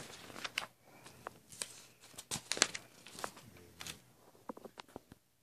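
Paper rustling and crinkling with scattered sharp clicks as pages of a sketchbook are handled close to the microphone, dying away near the end.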